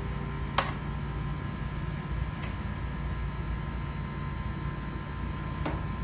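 Two sharp clicks of metal, one about half a second in and one near the end, as an espresso machine's stainless-steel filter basket and parts are handled, over a steady low hum.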